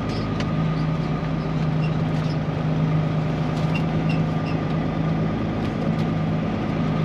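Peterbilt 379 semi truck's diesel engine running with a steady low hum.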